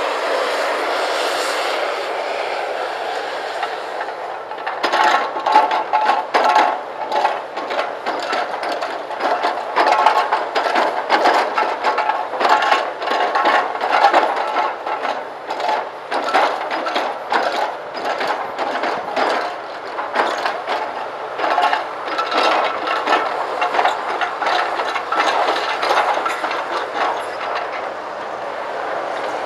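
Hydraulic breaker on a Komatsu PC340LC excavator hammering concrete: a rapid, continuous rattle of blows that starts about five seconds in and stops near the end. Before it, the excavator runs with a steady noise.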